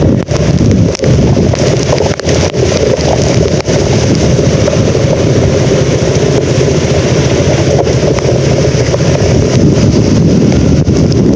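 Typhoon wind buffeting the microphone in a loud, steady rumble, with rain and a few brief knocks of handling.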